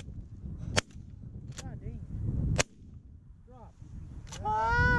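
Shotgun shots from the hunters' blinds, about four cracks roughly a second apart. Goose honking joins between the shots and grows loud near the end.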